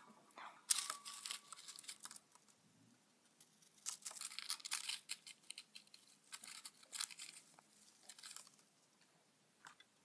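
Dry rustling and crinkling from inside a small pet rodent's cage as the animal scrabbles about. The sound comes in irregular bursts, first about a second in and again from about four to eight and a half seconds.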